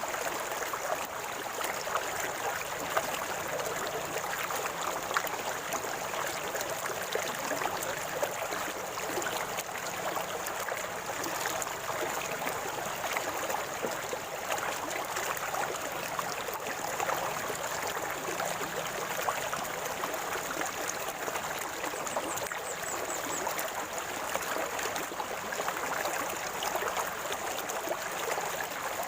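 River water flowing steadily over rocks, gurgling and splashing.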